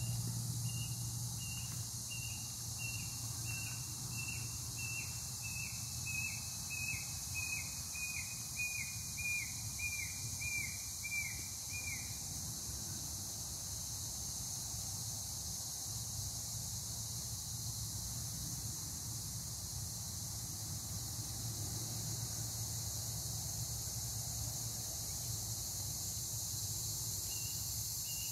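A bird whistling a long series of short, downward-slurred notes, about two a second, the series stepping gradually lower in pitch for about twelve seconds and starting up again near the end. Under it, a steady high hiss of insects.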